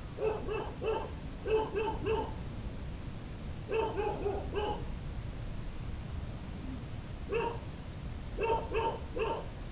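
A dog barking in quick runs of three or four barks with pauses between, about thirteen barks in all.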